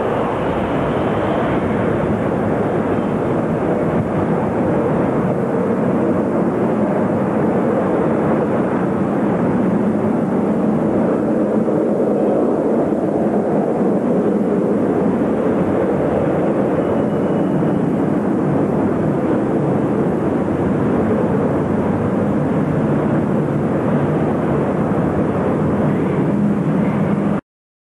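Four-engined jet airliner's engines running with a loud, steady roar as the aircraft moves along the runway. The sound cuts off suddenly near the end.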